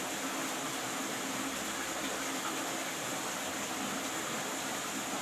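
Steady ambient hiss of a flowing stream, with an even, high drone above it that does not change.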